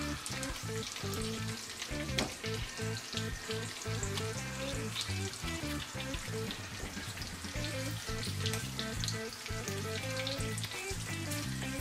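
Bacon frying in a skillet: a steady sizzle full of small crackles and pops. Background music plays underneath.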